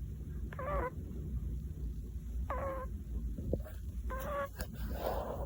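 Pomeranian puppy snoring in its sleep: a short, high, squeaky whistle on each breath, three of them about two seconds apart, with a soft breathy hiss near the end.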